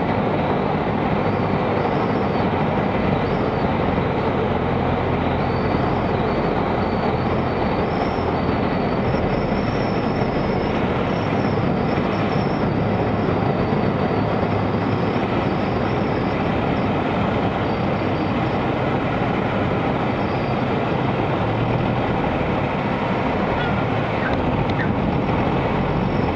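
Steady, loud rumble of a Cessna 172's engine at low landing power, mixed with rushing air, as the airplane lands and rolls out along the runway.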